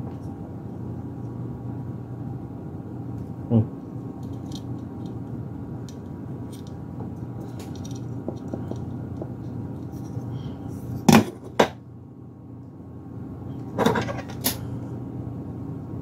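A Fenvi PCIe Wi-Fi card and its metal bracket are handled and fitted together, giving a light knock about three and a half seconds in and two pairs of sharp clicks in the second half. Under them runs a steady low hum.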